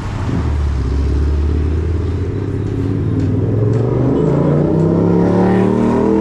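A motor vehicle's engine accelerating close by, its pitch rising steadily for about five seconds and dropping at the very end.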